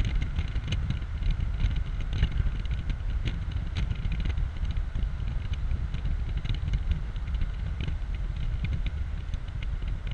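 Open-top 2004 BMW Z4 2.5i driving at speed: heavy wind buffeting on the microphone and road noise, with many small sharp clicks scattered throughout.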